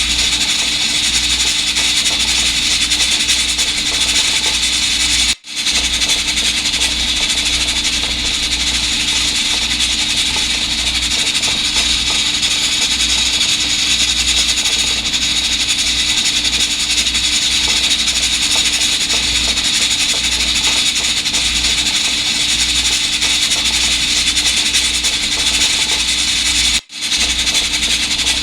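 Electric pressure rice cooker venting steam: a steady, noisy hiss with a faint hum under it, broken twice by brief gaps, about five seconds in and near the end.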